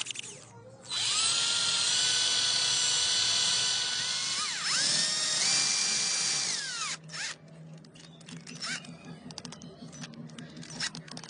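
Cordless drill running at a steady whine as its bit drills through a stack of flattened metal bottle caps. The pitch dips briefly about four and a half seconds in, rises again, and the motor winds down about seven seconds in, followed by light clicks from handling the caps.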